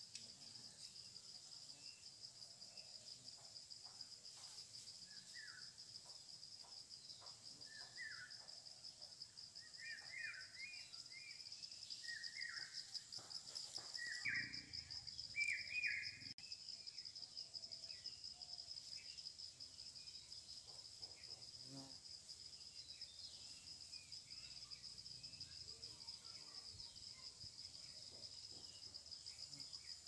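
A steady, high-pitched insect trill, faint and unbroken, with short bird chirps scattered through the middle. The chirps are loudest about halfway, together with a brief low rumble.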